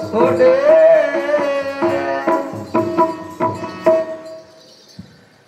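Music with a gliding melody over held notes, and tabla strokes. It dies away about four seconds in.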